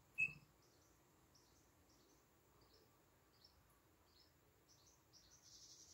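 A small bird moving in a nest box: a single knock with a short chirp about a quarter second in, then faint, high, short peeps scattered throughout.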